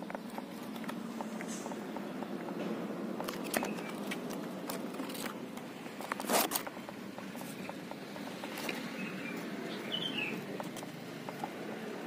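Handling noise from a phone on a selfie stick pushed up into a teak tree: leaves and twigs rustle and scrape against the phone, with scattered small clicks and one louder scrape about six seconds in.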